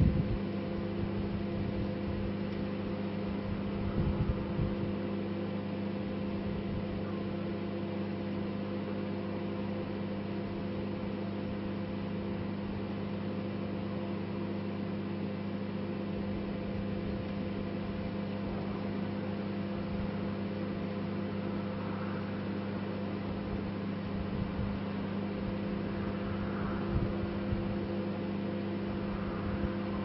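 Microwave oven running with a steady hum while a collapsible umbrella smoulders and sparks inside it. A few brief crackles come through, about four seconds in and again near the end.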